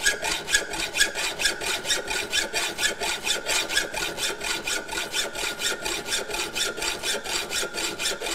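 Hand hacksaw cutting through 1/8 by 3/4 inch flat steel bar stock held in a vise: a steady run of quick, even back-and-forth rasping strokes, with a faint steady metallic ring under them.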